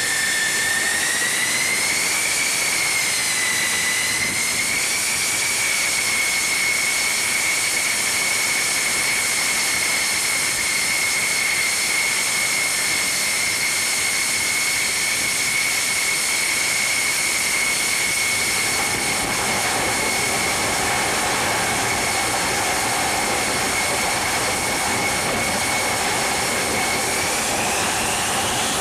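F-14 Tomcat jet engines (General Electric F110 turbofans) running on a carrier flight deck: a loud steady high whine over a broad rush of jet noise. About two-thirds of the way through a lower hum joins in, and near the end the whine rises as an engine spools up toward launch power.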